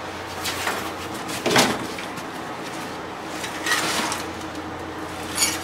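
A few scattered knocks and rustles of things being moved and handled in a cluttered shop, over a steady low hum; the sharpest knocks come about a second and a half in and just before the end.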